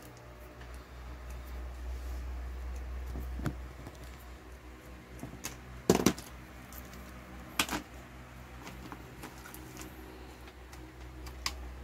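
Cables and plugs being handled and a small plastic set-top box picked up and moved on a table: scattered sharp clicks and knocks, loudest about six seconds in, over a steady low hum.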